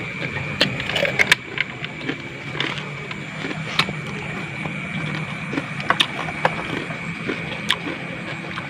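Night-time outdoor chorus: a steady, high-pitched trill with a low hum beneath it, broken by scattered sharp clicks and taps, the loudest about a second in and near six seconds.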